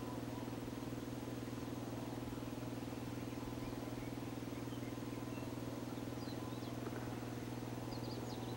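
Steady low motor hum that does not change, with a few faint high bird chirps about five seconds in and again near the end.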